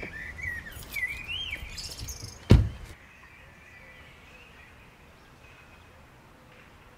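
Birds chirping over faint outdoor background noise, with one loud low thump about two and a half seconds in; after that only the faint steady background remains.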